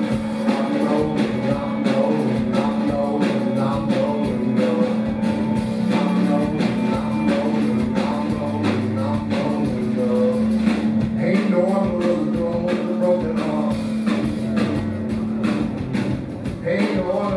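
Rock band playing live: drums keep a steady beat under guitar and a long-held low note, with melodic lines shifting above. The held low note drops out near the end.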